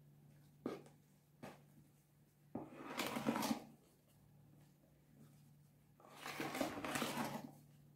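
A utensil stirring thick semolina-kefir batter in a plastic bowl. There are two longer scraping, swishing passes, about three seconds in and again near seven seconds, with a couple of light taps before them. A faint steady low hum runs underneath.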